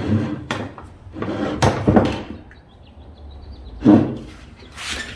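Nails being driven into a cedar birdhouse roof: a handful of sharp knocks on wood, the loudest about four seconds in.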